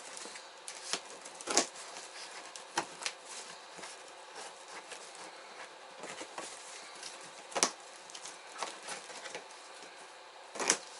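Cardboard box and packaging being cut and pulled apart: steady rustling and scraping with scattered sharp snaps, three of them louder, about one and a half, seven and a half and ten and a half seconds in.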